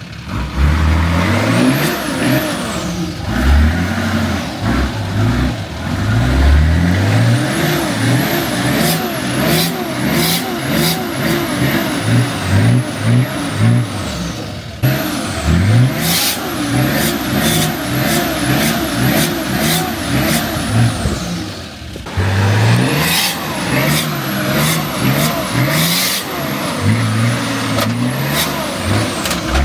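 A four-wheel drive's engine revs in repeated bursts of throttle as it works up a steep, rutted off-road line, with sharp knocks and clunks from the vehicle over rock.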